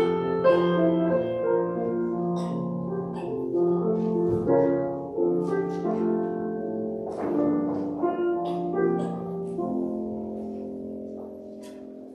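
A keyboard instrument playing a slow passage of held chords that fades away near the end.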